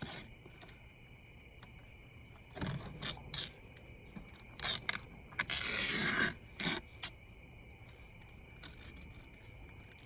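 Masking tape being peeled off a truck's body panel and vinyl transfer tape: several short rips, with a longer pull about six seconds in.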